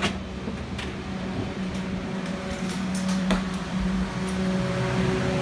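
Steady air-conditioning and ventilation hum with a low held tone, heard while passing from the aircraft door into the jet bridge. A couple of light knocks sound, and the hum's tone changes near the end.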